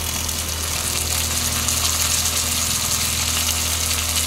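Raw goat meat sizzling in hot oil among fried onions and garlic in a pan, the sizzle growing louder about two seconds in, over a steady low hum.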